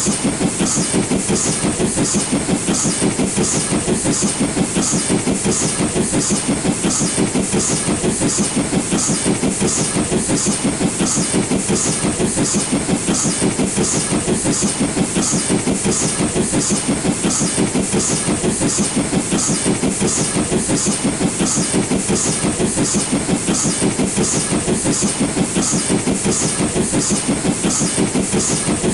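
LNER B12 4-6-0 steam locomotive working hard up a gradient under load, its exhaust beats coming in a steady, even rhythm with the hiss of steam.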